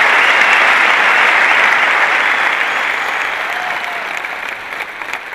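Large audience applauding, many hands clapping together as one dense wash, fading away over the last couple of seconds.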